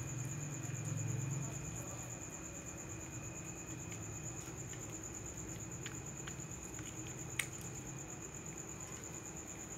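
Crickets trilling steadily in a high, finely pulsing tone. A low hum fades out about a second and a half in, and a single sharp click comes about seven seconds in.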